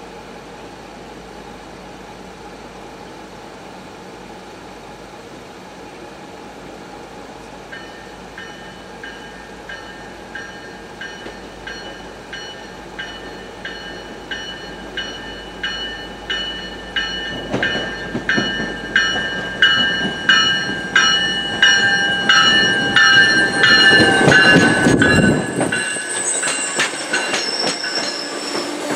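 MBTA commuter train approaching and running past. A faint rail rumble grows into an even rhythm of wheel clicks with ringing rail tones, and a heavy rumble builds as the train arrives, loudest a few seconds before the end.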